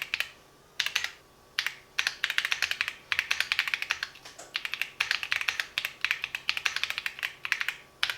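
Typing on a Keychron Q6 Max full-size aluminium mechanical keyboard with Gateron Jupiter Banana switches: fast runs of key clicks broken by brief pauses.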